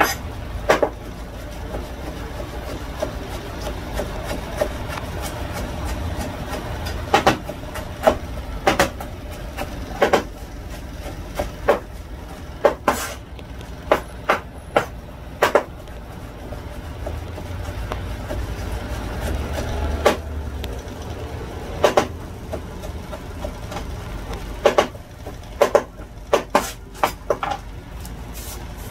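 A large kitchen knife chopping conch salad ingredients on a plastic cutting board: irregular sharp knocks of the blade hitting the board, some single and some in quick runs, over a steady low rumble.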